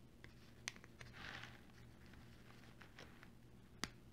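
Faint handling sounds: a few sharp clicks and a short soft rustle as small rivets are pressed through a paper phone case and the display under it. The loudest click comes near the end.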